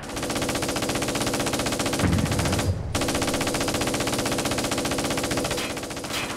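Sustained rapid machine-gun fire in long bursts, with a short break a little under three seconds in.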